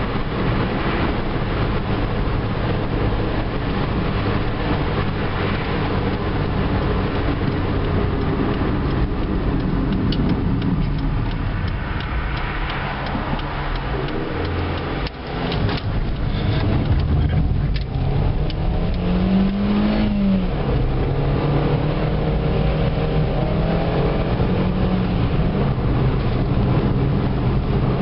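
Mk4 Ford Fiesta's 1.25-litre four-cylinder petrol engine running under way, with tyre and road noise, heard from inside the cabin. The engine note dips briefly about halfway through, then climbs and falls again as the car picks up speed.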